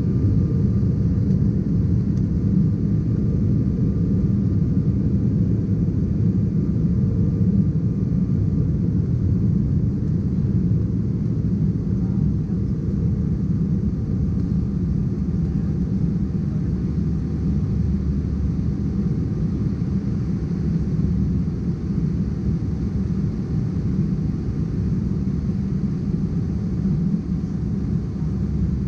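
Cabin noise of an Embraer ERJ-190 climbing out after takeoff: the steady low rumble of its GE CF34-10E turbofan engines and the rush of air past the fuselage, heard from inside the cabin beside the wing.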